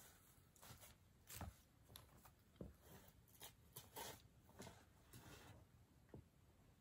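Faint, scattered knocks and scrapes of a hand tool digging in dry soil, with the rustle of dry leaves as the digger steps and crouches.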